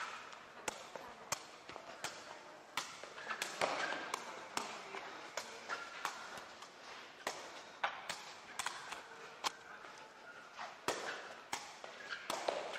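Sepak takraw ball being kicked back and forth between players, a sharp knock with each kick about once or twice a second.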